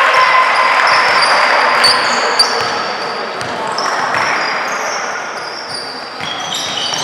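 Basketball game sounds in a gym: a basketball bouncing on the court, with many short high squeaks and one sharp knock about two and a half seconds in, over a background of crowd voices.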